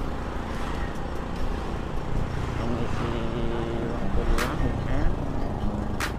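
Honda Vario scooter running at riding speed among other motorbikes in traffic, a steady low rumble, with two short sharp noise bursts about four and six seconds in.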